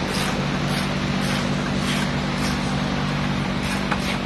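A steady mechanical hum with a rushing noise underneath, and a few faint knocks near the end.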